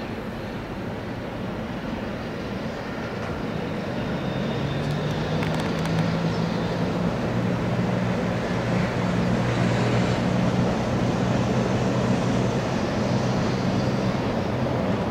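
A long freight train of tank cars and container wagons rolling past on an elevated viaduct: a steady rumble that builds over the first few seconds and then holds, with a steady low drone underneath.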